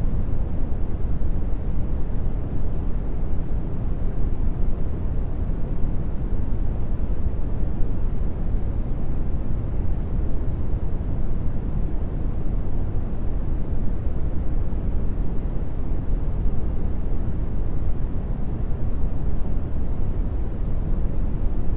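Brown noise: a steady, deep rushing hiss, strongest in the bass and fading off toward the treble, with no changes.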